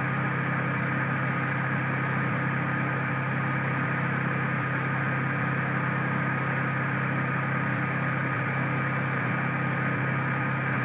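Steady low background hum with a faint thin high tone over it, unchanging: the recording's noise floor.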